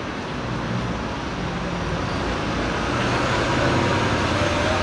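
Road traffic on a city street: a motor vehicle's engine and tyres passing close, swelling to its loudest about three to four seconds in.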